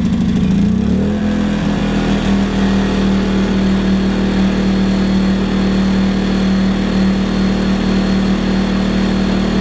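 WEN 56200i inverter generator's small four-stroke engine running just after a start: it runs unevenly at first, picks up speed about a second in, then settles into a steady hum.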